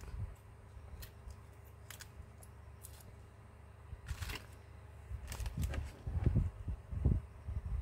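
Handling noise as a Huawei P20 lite's opened midframe and small parts are moved about on a desk: a few light clicks and taps, then heavier low knocks in the last couple of seconds as the frame is set down.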